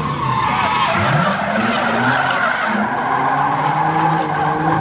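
Drift car sliding sideways under power, tyres screeching while the engine revs; the engine pitch climbs about a second in, then holds high.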